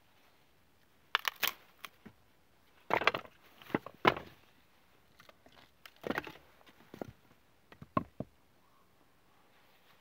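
Split pieces of firewood knocking and clattering together as they are picked up and tossed aside, in a few short bursts, with one sharp wooden knock near the end.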